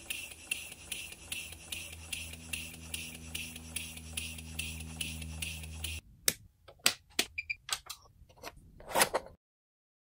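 PM Research model steam engine running, its exhaust chuffing evenly about four times a second over a low steady hum. It cuts off abruptly about six seconds in, and a few sharp clicks and knocks follow.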